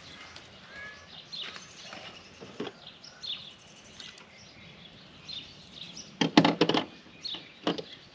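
Birds chirping in short, scattered calls, with a loud burst of knocks and clatter about six seconds in and another knock near the end.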